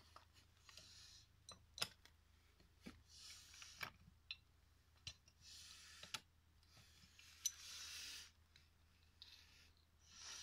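Faint metal clicks and short scraping sounds as a pipe wrench is worked on a rusty nut at the base of an old SAC vacuum pump, about six sharp clicks scattered among brief scrapes.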